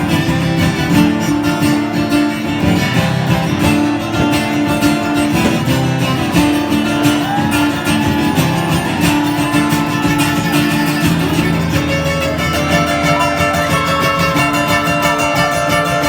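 Live country band playing an instrumental passage: a guitar lead with notes bending up and down over bass and a steady drum beat.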